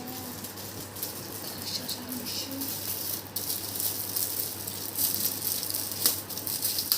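Gift wrapping paper crackling and rustling as a present is unwrapped by hand.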